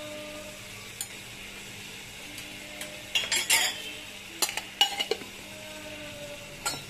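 Masala bubbling and sizzling in a nonstick pan on a gas burner, with a cluster of knocks and scrapes of a spatula or spoon against the pan about three to five seconds in and one more near the end, as ground spice goes into the frying paste.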